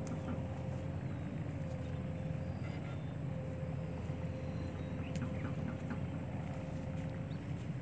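An engine running steadily, a constant low rumble with a faint steady hum above it.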